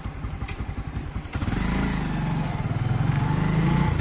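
A vehicle engine idling with a fast low pulsing beat, then revving up about one and a half seconds in, louder, its pitch climbing and dipping slightly near the end.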